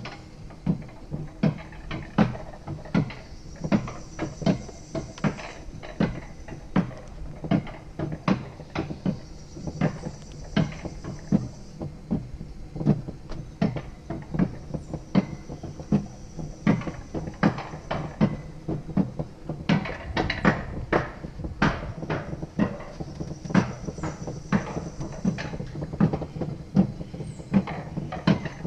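Rail-guided bobsled-ride cart rolling along its track, its wheels knocking in a steady rhythm of about two clunks a second over a low rumble, with a faint high whine coming and going.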